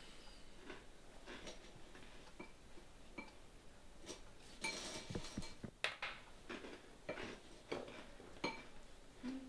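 Breakfast-table tableware: a spoon and cutlery clinking against a bowl and dishes in light, scattered taps. A short noisier stretch comes about five seconds in, followed by a sharper click.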